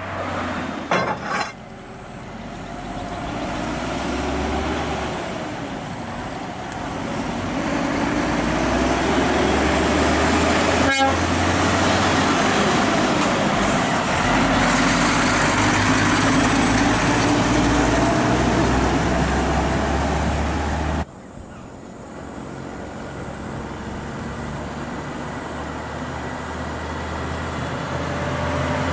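Heavy diesel truck engine running under load on a climb, growing louder over many seconds. It cuts off abruptly about two-thirds of the way through, and a quieter engine sound then builds again.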